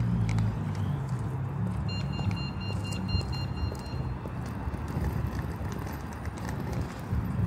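Street traffic with a steady low engine rumble. For about two seconds, starting near the two-second mark, a rapid high-pitched electronic beeping sounds.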